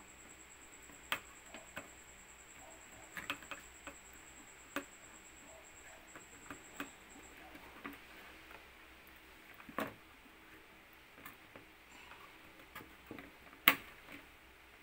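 Scattered plastic clicks and taps of a memory module being handled and worked into a desktop motherboard's RAM slot and its latch, with the loudest click near the end. A faint high whine runs through the first half and stops about halfway.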